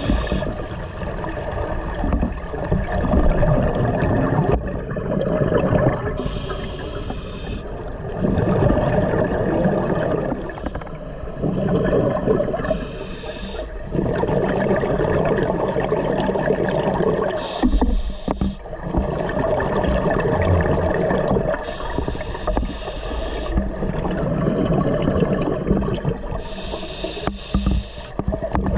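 Scuba diver breathing underwater through a regulator: a steady rushing and gurgling, with bursts of exhaled bubbles about every six seconds.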